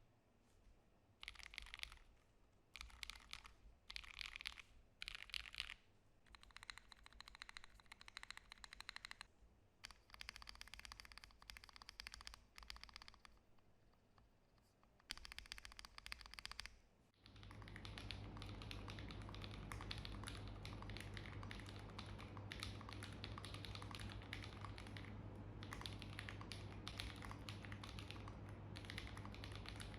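Mechanical keyboard type test: keys pressed in short bursts of clicks, separated by pauses, for roughly the first half. From about 17 seconds in comes continuous fast typing over a faint steady hum.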